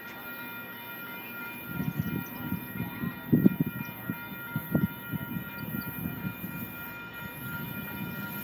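Freight train passing, with a run of irregular low knocks from wheels on the rails through the middle and a steady high tone underneath.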